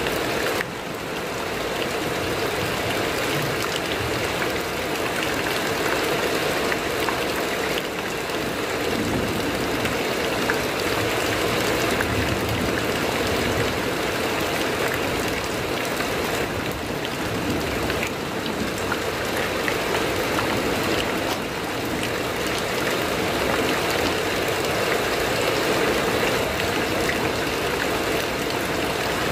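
Heavy rain falling on a corrugated metal roof, heard from beneath it as a steady, dense patter.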